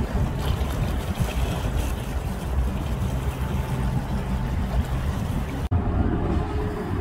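Waterfront ambience: wind noise on the microphone over lapping water, with a steady low rumble. About six seconds in it cuts abruptly to a different steady low hum carrying a faint steady tone.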